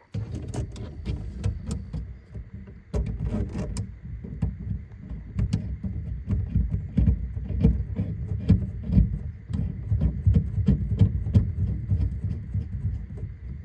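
Irregular clicks, knocks and rubbing over a low rumble, the handling noise of hands working on faucet parts.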